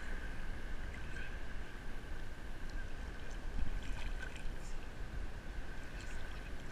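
Sea water sloshing and splashing around a camera held at the waterline in chest-deep surf, over a steady low rumble of waves, with small splashes scattered through it.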